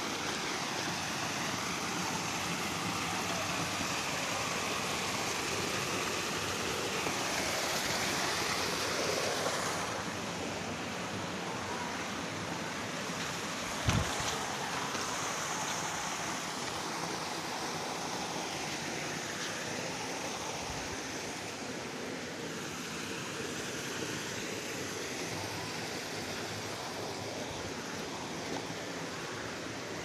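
Steady rush of a waterfall's water cascading over rocks, with a single sharp thump about halfway through.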